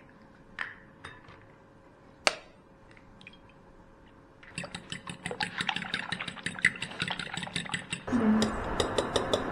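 Eggs cracked on a glass bowl: a few sharp taps and clicks, the loudest a little over two seconds in. From about halfway, a fork beating the eggs in the glass bowl makes a rapid clinking of metal on glass, which turns into a denser swishing near the end.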